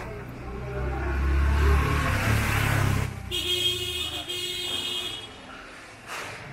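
A motor vehicle passes close by, its engine rumble building and then fading over about three seconds. It is followed by a high, steady pitched tone lasting about two seconds.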